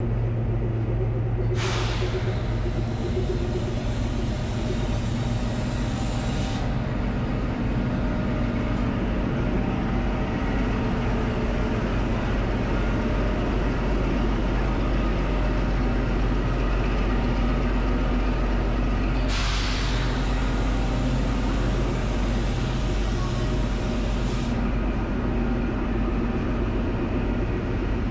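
Steady low drone of an idling diesel engine beside a train. Two stretches of hissing of about five seconds each start and stop suddenly, one about two seconds in and one about twenty seconds in.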